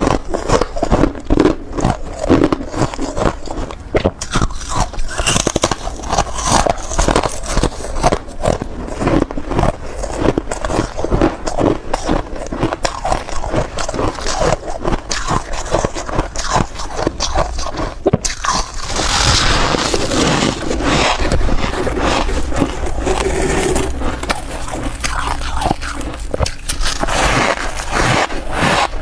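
Close-miked biting and crunching of soft white ice chunks: rapid, crackling crunches, one bite after another, becoming denser and more continuous about two-thirds of the way through.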